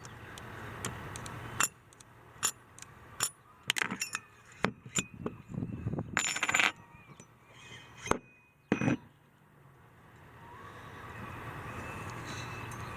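Small metal parts clinking and clacking as they are handled, a string of sharp clicks with a few longer rattles. A steady rushing noise builds near the end.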